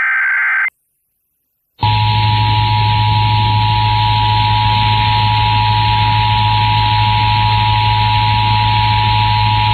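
Emergency Alert System broadcast over FM radio: the tail of a SAME digital header burst (a harsh warbling data screech), about a second of silence, then the EAS attention signal, a steady two-tone 853 and 960 Hz alert tone held for about eight seconds. Hiss and a low hum from the radio reception run under the tone.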